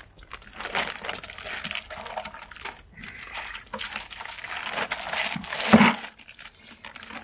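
Plastic bags crinkling and rustling irregularly as they are handled, with one louder knock a little before the end.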